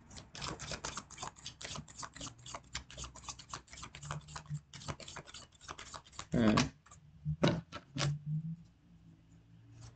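Tarot cards being shuffled by hand: a rapid run of soft card clicks and slaps for about six seconds, then a few separate taps. A short hum of a voice about six and a half seconds in.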